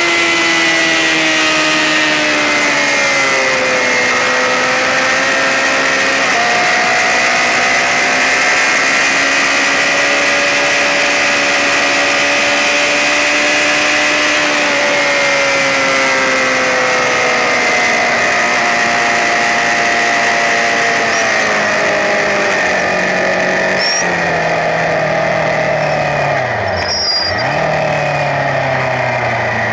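Racing sportbike engine running hard, its pitch sliding down and back up with throttle and gear changes over a steady rush of wind noise. Near the end the revs fall steeply and then climb again.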